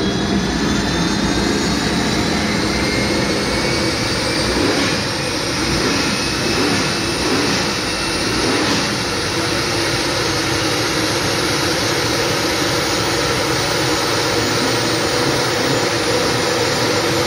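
Howmet TX race car's Continental gas turbine engine idling: a continuous whine over a broad rush of exhaust noise, its high tones climbing slightly in the first few seconds and then holding steady.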